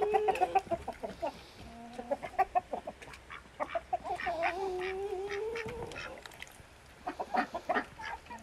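A flock of chickens clucking, with several drawn-out calls; the longest, near the middle, is held for about two seconds and rises slightly in pitch.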